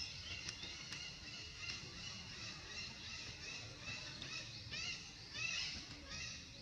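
Repeated short, high-pitched animal chirps and squeals, louder twice about five seconds in.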